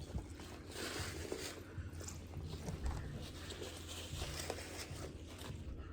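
Quiet eating sounds: soft chewing with small clicks and rustles of handling seafood, over a low steady hum.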